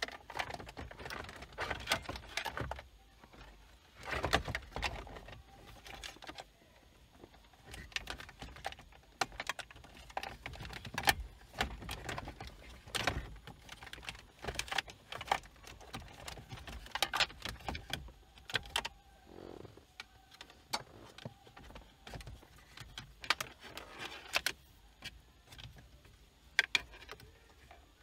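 Hard plastic centre-console trim panels and wiring of a Toyota Corolla being handled, giving irregular clicks, knocks and rattles.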